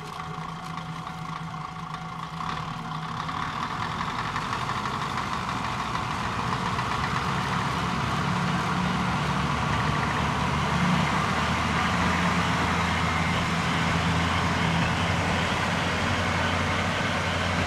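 Kominato Railway KiHa 200 diesel railcar's engine running with a steady low hum. It grows louder over the first eight seconds or so, then holds steady.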